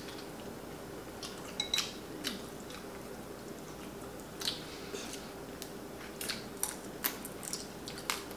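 People eating at a table: quiet chewing and mouth sounds, with scattered small clicks of chopsticks and fingers against bowls. A faint steady hum runs underneath.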